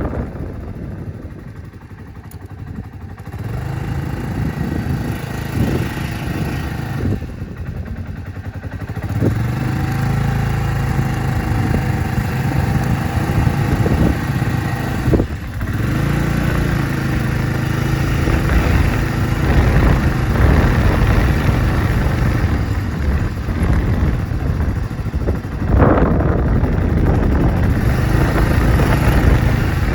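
Suzuki Skywave 250 CJ43A scooter's single-cylinder four-stroke engine running, its note easing off and picking up again several times as the throttle changes.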